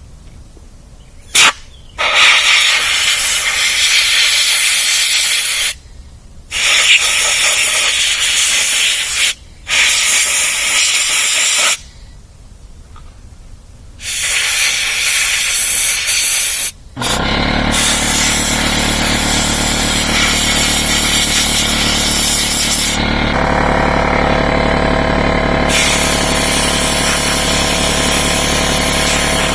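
Compressed-air blow gun blasting in hissing bursts of a few seconds each, with short pauses between them. About halfway through, an air compressor's motor kicks on and runs steadily beneath the blasts, refilling the tank as the air is used up; the hiss stops for a few seconds near the end and then resumes.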